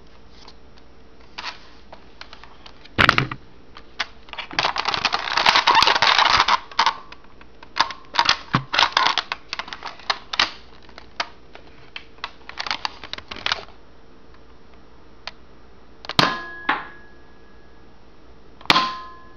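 Buzz Bee Double Shot foam dart blaster being worked by hand: a string of plastic clicks and clacks from breaking it open, loading shells and priming it, with a loud crack about three seconds in and a rustle of handling soon after. Near the end come two sharp snaps, each with a brief ring, consistent with its spring-powered shots.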